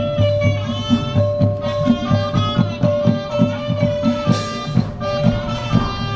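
Live band music: a quick, steady drum beat under a held melody note.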